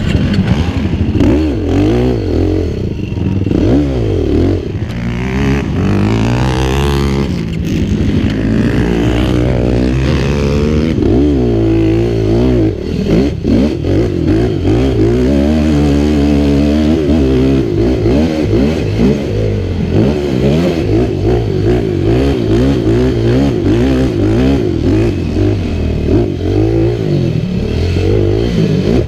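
2014 Yamaha YFZ450R's single-cylinder four-stroke engine revving hard under racing throttle, its pitch climbing and dropping over and over as the rider gets on and off the gas.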